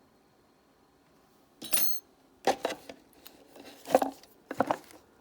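Small objects knocking and clinking as things are taken out of a sewing machine cabinet drawer. There are several short, sharp knocks starting about a second and a half in, and the first has a bright metallic ring.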